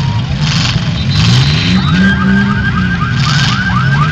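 Demolition derby car engines revving, their pitch rising and falling, with short hissing bursts. About two seconds in, a rapidly repeating electronic warble starts, about four strokes a second, like a car alarm or siren yelp.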